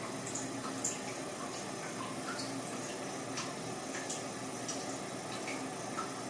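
Pancake batter frying in coconut oil in a hot pan: a steady soft sizzle with faint scattered pops and ticks.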